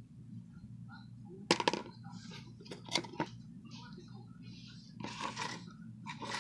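A plastic cup handled against a wooden table as a beetle is scooped into it: a few sharp clicks and knocks, then a brief scraping rustle about five seconds in, over a steady low hum.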